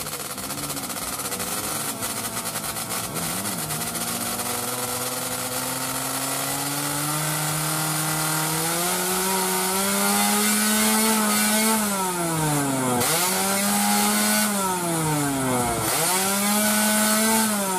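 A newly built two-stroke racing engine in a mini grasstrack bike, running at a fast idle. Its note creeps slowly higher over the first ten seconds, then twice dips sharply and climbs straight back up as the throttle is worked.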